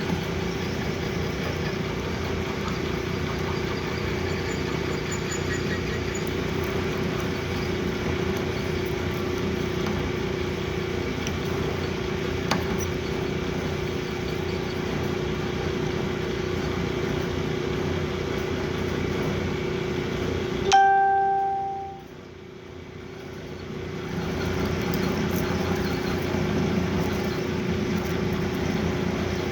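Metal lathe running with a steady hum. About two-thirds of the way through there is one sharp metallic ring, then the running sound drops away briefly and builds back up.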